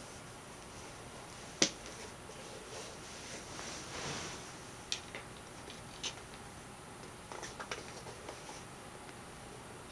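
Faint handling sounds as a sneaker is held and turned by hand: a soft rustle, a few light clicks, and one sharper click about a second and a half in.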